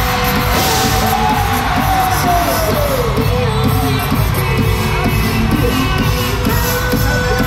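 Live pop music with singing, loud over a cheering crowd.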